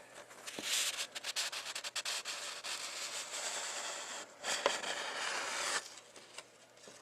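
Handling noise: rubbing and scraping with scattered small clicks, stronger for a moment about four and a half seconds in, and stopping about six seconds in.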